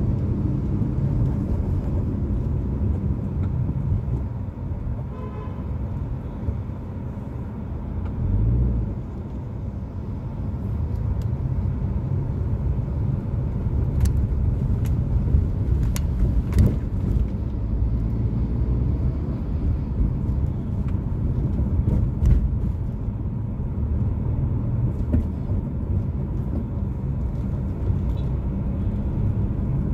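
Steady low engine and road rumble heard from inside a car moving slowly in city traffic. A vehicle horn sounds briefly about five seconds in, and a few short knocks come around the middle.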